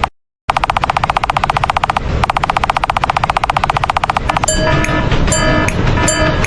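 Cartoon railroad-crossing warning bell sound effect: a very rapid, evenly repeated ringing ding, cut off for a moment just after the start and again about two seconds in. About four seconds in it changes to a different ringing pattern, with sharp clicks about three times a second.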